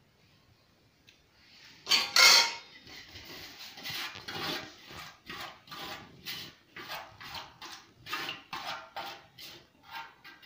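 Metal cooking pots and a utensil clattering and scraping: one loud clatter about two seconds in, then a run of short scrapes and knocks, about two a second.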